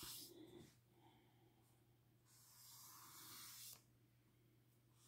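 Near silence, with the faint scratch of a felt-tip marker drawn across paper for about a second and a half near the middle.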